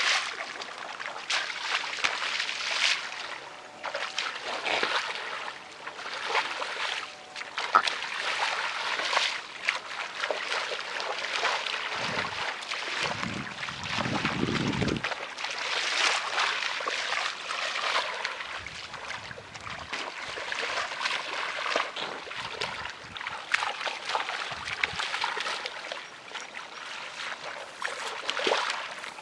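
Feet wading through shallow, muddy paddy water, with irregular sloshing and small splashes as they step and squelch in the mud.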